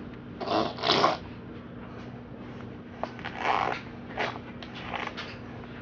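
A baby making strange noises with her voice in several short bursts, the loudest about a second in and again midway through.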